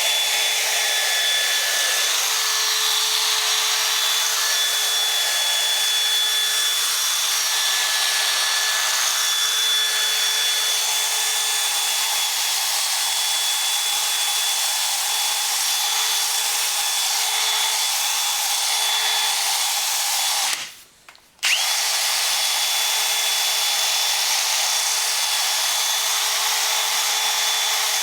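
Power drill spinning a 3000-grit sanding pad against a plastic headlight lens: a steady motor whine over an abrasive hiss. It stops for about a second a little after two-thirds of the way through, then starts again.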